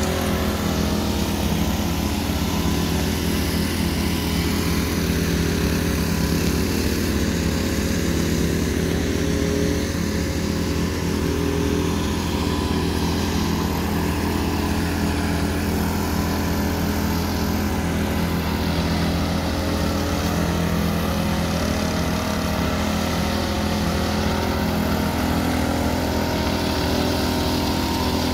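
Walk-behind concrete power trowels running steadily as they float a fresh concrete slab, their small petrol engines giving a constant, even hum.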